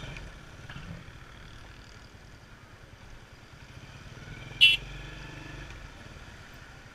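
Motorcycle engine running low and steady as the bike rolls slowly. About four and a half seconds in, a brief sharp high-pitched sound cuts through once.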